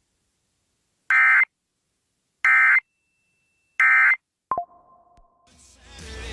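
Emergency Alert System end-of-message signal: three short bursts of buzzy digital data tones about a second apart, marking the end of the alert message. A click follows, then faint steady tones, with hiss rising near the end.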